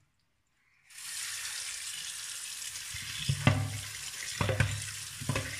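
Tap water running onto raw beef pieces in a steel colander as they are washed: a steady splashing hiss that starts about a second in, with a few dull knocks as the meat and colander are handled.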